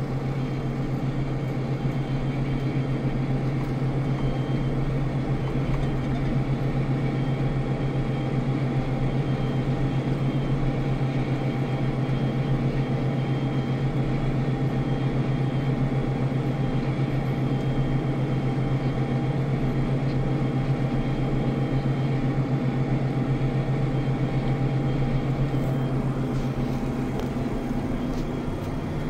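Tractor engine running at a steady speed: a constant, unchanging drone with no revving.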